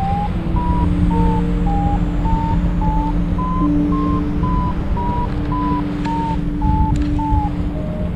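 Paragliding variometer beeping about twice a second, the pitch wandering up and down from beep to beep: the vario's climb signal as the glider rises in lift. Wind rumbles on the microphone underneath.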